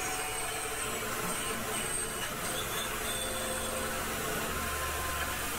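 Tormach PCNC 1100 CNC mill cutting aluminum with a quarter-inch high-speed-steel end mill at 5100 RPM: a steady machining noise with no breaks.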